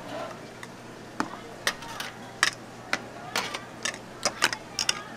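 Metal scissors and tongs clicking and scraping against a bowl as a bawan (Taiwanese meatball) is cut up and served. The sharp clicks come irregularly, about a dozen of them, over a faint steady background hum.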